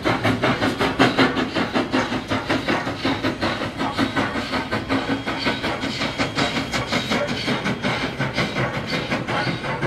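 Canadian National 89, a 2-6-0 steam locomotive, chuffing steadily while hauling its passenger train, about four exhaust beats a second.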